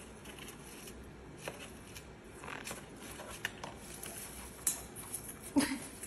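Small parrots rummaging in a tub of crinkled shredded paper: scattered rustles and light clicks, with a louder scuffle near the end.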